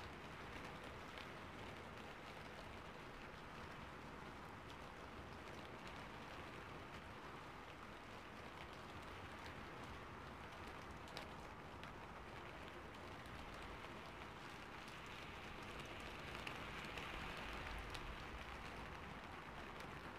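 Rain falling: a faint, steady hiss with scattered ticks of single drops, swelling a little for a few seconds near the end.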